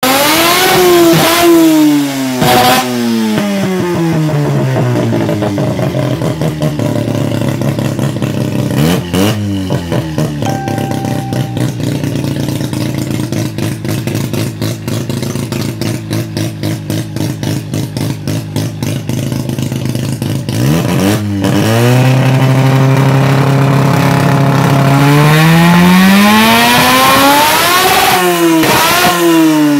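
Naturally aspirated Mazda 13B rotary engine in a Volkswagen Beetle drag car, blipped hard several times, each rev falling quickly away. In the middle it idles with a fast, choppy pulse. Near the end it is held at a higher speed, then revved up and blipped again.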